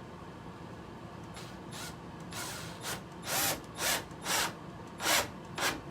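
Power drill driving a screw into door knob hardware in about nine short bursts, starting about a second and a half in.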